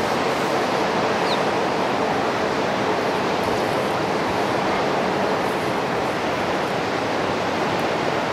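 Steady rush of a fast-flowing river.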